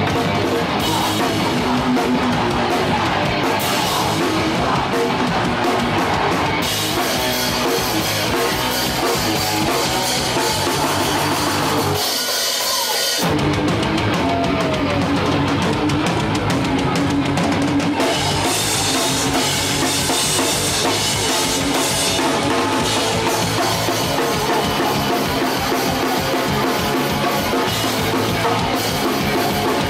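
Hardcore punk band playing live, with distorted electric guitar, bass and drum kit. About twelve seconds in the low end drops out for a moment, then the full band comes back in.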